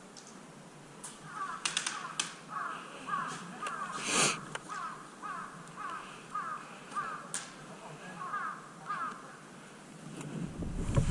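A crow cawing over and over, about two short calls a second. A few sharp clicks or snaps come between the calls, the loudest about four seconds in. A low rumble rises near the end.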